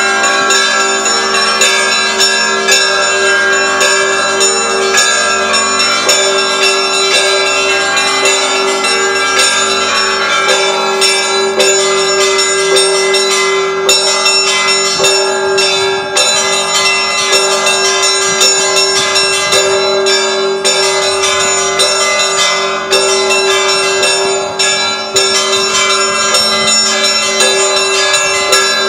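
The Russian Orthodox church bells of Kazan Cathedral rung together in a continuous peal. Rapid, dense strikes of the smaller, higher bells ring over a steady, sustained bell tone.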